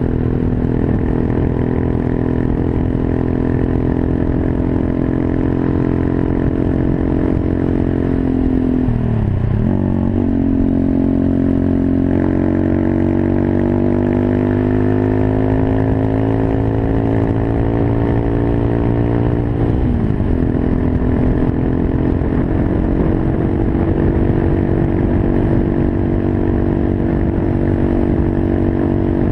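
Monkey bike's small single-cylinder engine running under way. Its pitch drops sharply about a third of the way in as the rider shifts gear, rises slowly as the bike gathers speed, and drops again at a second shift about two-thirds of the way through.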